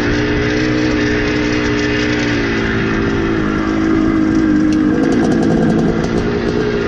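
Two-stroke dirt bike engine running on the throttle, its revs rising and falling.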